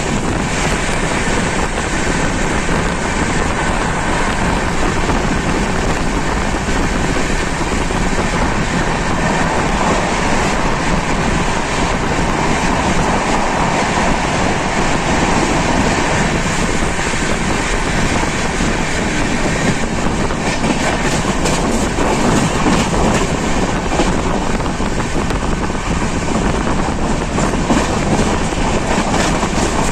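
Indian Railways express train running along the track, a loud, steady noise of wheels on rails and coach movement.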